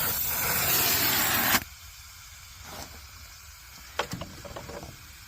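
Brazing torch hissing at a copper line-set joint, shut off abruptly about one and a half seconds in, followed by a few light clicks and taps.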